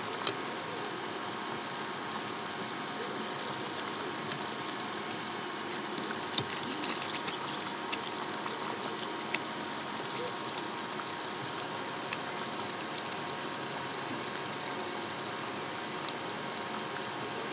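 Local chicken curry cooking in a pot, a steady hiss with scattered small pops as it reduces and thickens.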